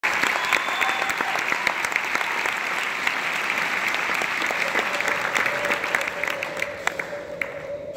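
Audience applauding, the clapping thinning out and fading near the end. A steady held musical note comes in beneath it about two thirds of the way through.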